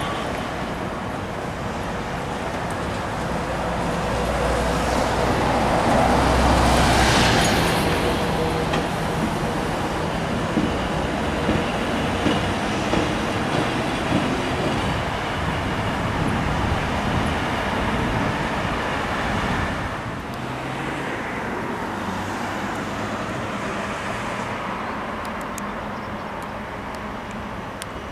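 Vintage trams rolling along street track, their steel wheels rumbling on the rails. The sound swells as a tram passes close about six or seven seconds in, and a run of short knocks follows about once a second, then it dies down somewhat about twenty seconds in.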